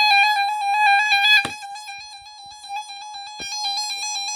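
Radio Shack 12-262 weather radio sounding its siren test: an electronic alarm tone warbling rapidly between two close pitches. It gets quieter about a second and a half in, and a couple of faint clicks come through.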